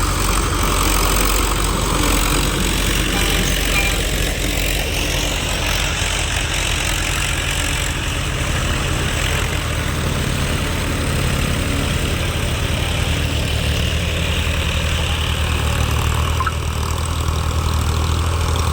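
Tractor diesel engine running steadily under load while pulling a plough for deep ploughing.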